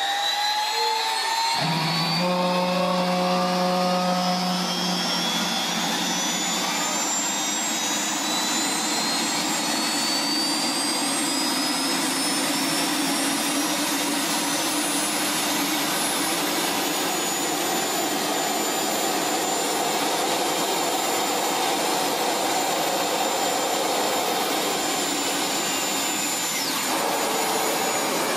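MTT Y2K superbike's Rolls-Royce Allison 250 helicopter turboshaft engine spooling up: a loud jet-like whine rising slowly in pitch, then holding steady. A low hum joins about a second and a half in and fades a few seconds later.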